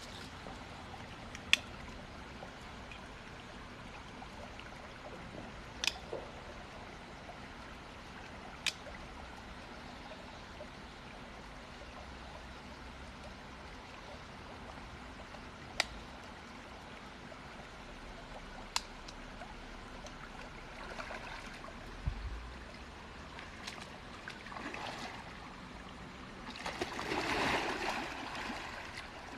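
Stream water trickling over rocks, a steady water sound, broken by a few sharp clicks spread through it. Near the end a louder rush of noise swells up for a couple of seconds.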